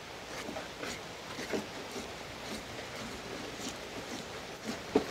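Soft clicks and scrapes of a knife scoring a raw goat carcass on a metal tray, with one sharper click near the end.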